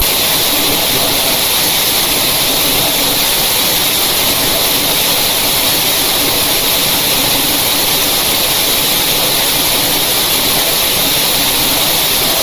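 Loud, harsh static noise from an emergency alert broadcast alarm: a steady hiss spread evenly from low to high pitch, with no tones or rhythm.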